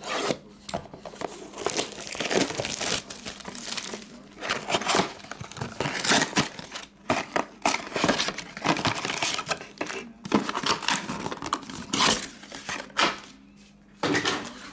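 Cellophane wrap on a trading-card box crinkling and tearing as it is slit with a utility knife and pulled off, then cardboard and foil card packs rustling, with a few sharp knocks as the box is opened and the packs are taken out and set down.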